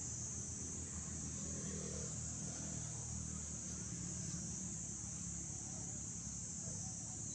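Steady, unbroken high-pitched drone of an insect chorus, over a low background rumble.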